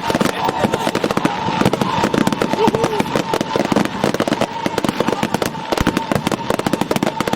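Fireworks display: a dense, continuous run of rapid bangs and crackles, many per second.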